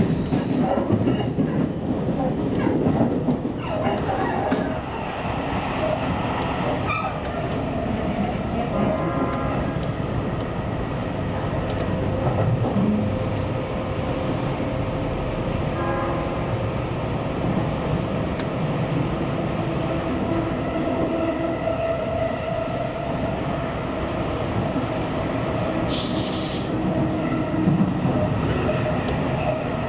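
Seibu Railway electric commuter train running along the line: steady rumble of wheels on rail, with a thin steady whine in the later part.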